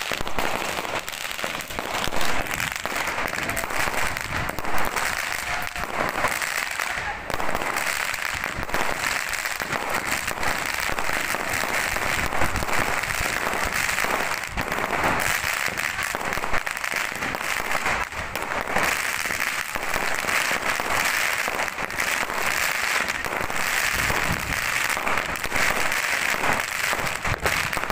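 New Year's fireworks and firecrackers going off all around in a dense, continuous crackle of rapid pops, with a few louder bangs scattered through.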